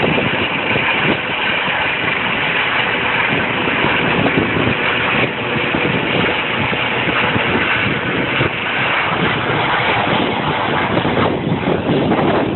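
Trauma helicopter's rotor and turbine noise, loud and steady, as it climbs away overhead after taking off.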